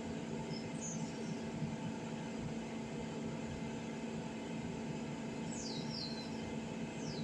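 Steady low background hum with a few short high chirps falling in pitch, a pair about five and a half seconds in and one more near the end.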